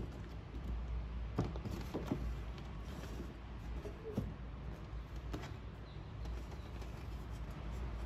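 A few soft clicks and taps of a wooden calendar frame and its clear panel being handled as a calendar card is fitted in, over a steady low hum.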